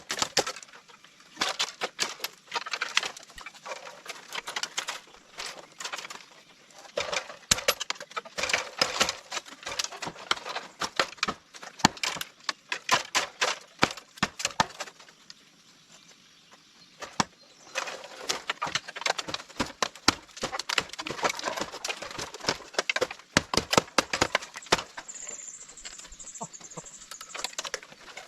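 Rapid, irregular knocking and clattering in bursts, with a pause of a couple of seconds around the middle, from hand work with tools and materials while building a stove.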